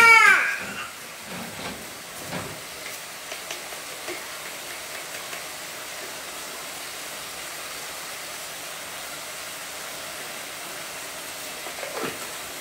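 A loud wailing cry, falling in pitch, at the very start, then a steady hiss with a few faint small knocks.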